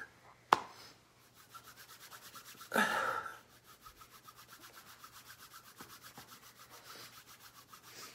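Hands rubbing together in a faint, fast, even back-and-forth, roughly seven strokes a second. A sharp click comes about half a second in, and a short breathy vocal sound, like a sniff, comes about three seconds in.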